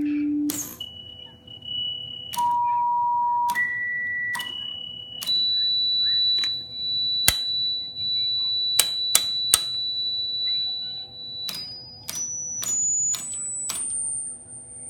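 HP 241A push-button oscillator putting out a pure sine tone that jumps to a new pitch each time a button is pressed with a sharp click. The tone hops between pitches early on, holds one high tone for about six seconds, then climbs in quick steps near the end.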